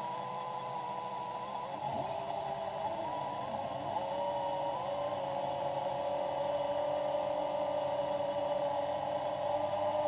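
ROV thrusters whining steadily as they control the vehicle's movement, a layered tone with a few short glides in pitch in the first few seconds.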